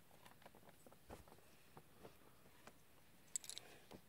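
Mostly near silence, with faint scattered clicks and crinkles of a clear plastic blister package being handled, and a brief cluster of sharper clicks about three and a half seconds in.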